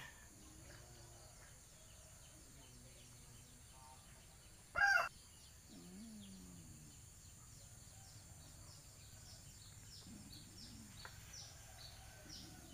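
Quiet rural outdoor ambience with faint high bird chirps repeating through the latter part. One short, loud call about five seconds in stands out.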